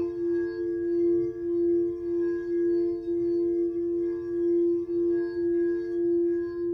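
Singing bowl ringing with a steady, held tone and several higher overtones, its loudness wobbling in a regular swell and dip.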